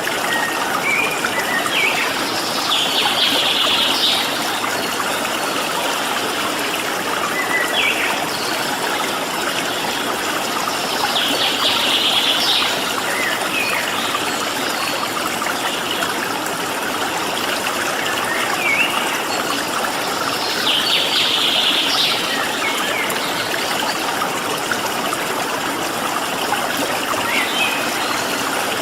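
Steady rush of flowing water. Over it, a small songbird gives a buzzy call three times, about nine seconds apart, with short chirps scattered in between.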